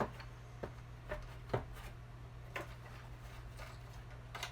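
A handful of light clicks and taps, about six, spread unevenly, as small metal and plastic parts of a tile saw motor are handled during reassembly. A steady low hum runs underneath.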